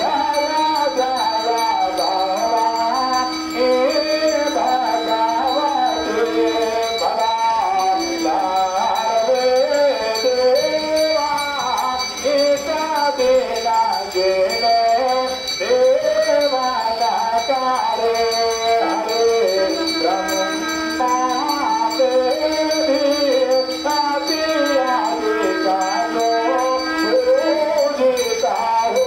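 Hindu temple aarti: a devotional hymn sung in a flowing melody, with bells ringing along and a low note held under it at times.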